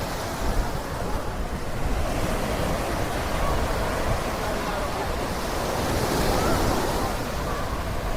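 Surf washing onto a sandy beach as a steady rush, one wave swelling and fading about six seconds in, with wind buffeting the microphone.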